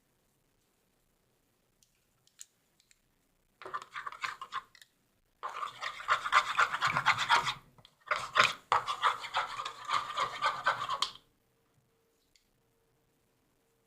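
Slime ingredients being stirred briskly in a container: fast scratchy scraping in three bouts, the first short and the last two a few seconds each.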